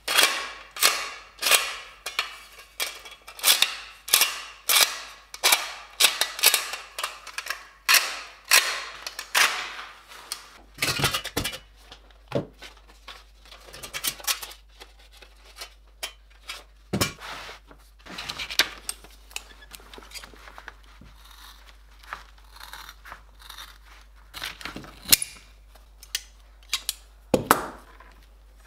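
Hammer striking sheet steel: a regular series of sharp, ringing blows about one and a half a second for roughly ten seconds, then scattered lighter knocks and metal clinks.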